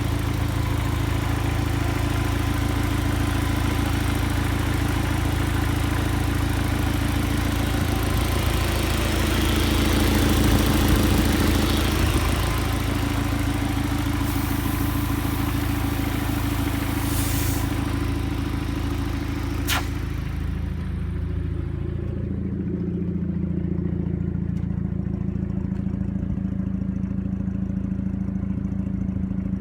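2000 Audi A4's 1.8T turbocharged four-cylinder engine running rough with heavy crankcase blowby and exhaust leaks, the signs of low compression from ringland failure. The engine swells briefly about ten seconds in. A broad hiss stops with a sharp click about twenty seconds in, after which the engine note changes and settles.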